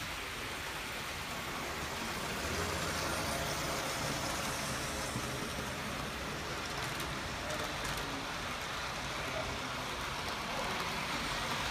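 Model Flying Scotsman 4472 locomotive with powered tender drive running its coaches along the layout track: a steady rolling hiss, with a low rumble that grows about two and a half seconds in.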